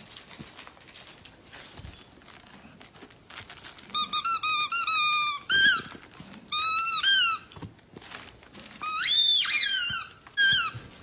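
High-pitched squeaking, in quick runs of short notes from about four seconds in, with one longer squeak near the end that rises and falls.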